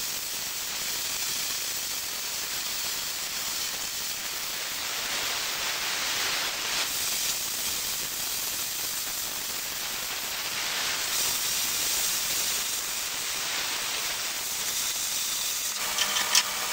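Plasma cutter cutting through steel plate: the steady hiss of the arc and air jet, which changes about sixteen seconds in as the cut finishes, followed by a few light clicks.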